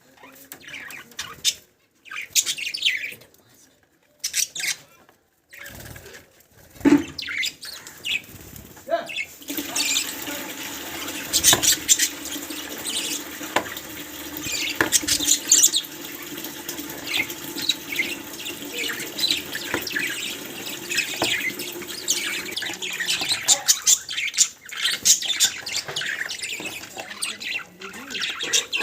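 Pet budgerigars chirping in many short, high calls, with gaps in the first few seconds. A steady low hum comes in about ten seconds in and runs under the chirps.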